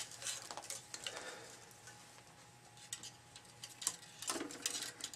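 Faint scattered clicks and rustles of tennis string being handled and pushed into place on a racket held in a stringing machine, with a few sharper ticks.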